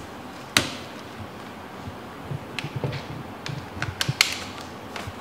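A laptop being handled and opened: one sharp click about half a second in, then a run of small clicks and taps.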